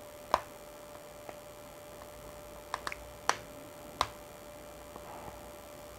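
A few short, sharp plastic clicks as a thin hard plastic case is pried off a Xiaomi Mi5 phone by hand, over a faint steady hum.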